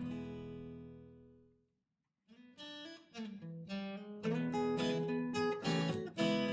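Acoustic guitar music. A chord rings and fades away to silence in the first two seconds, then the guitar starts again with picked notes and strums.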